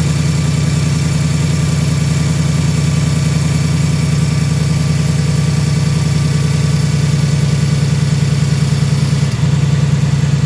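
2018 Ford Mustang GT's 5.0 L Coyote V8 idling steadily with a loud ticking noise. Owners suspect the tick comes from the bottom end; the uploader takes it for a normal noise of the gen-3 Coyote.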